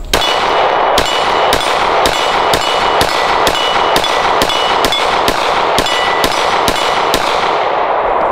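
A Glock 19 9mm pistol fired in a fast string of about fourteen shots, roughly two a second, with a steel target ringing from the hits. The echo dies away near the end.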